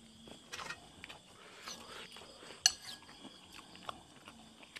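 A metal spoon clinking and scraping against a ceramic soup bowl during eating, a few separate clicks with the sharpest about two and a half seconds in, and soft chewing sounds between.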